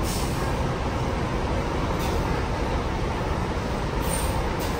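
Diesel coach bus engine running with a steady low rumble as the bus moves slowly past.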